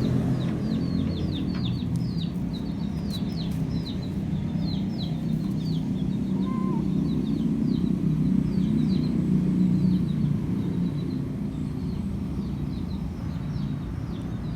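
Small birds chirping: many short, high, quickly falling chirps, coming thick at first and thinning out later, over a steady low rumble.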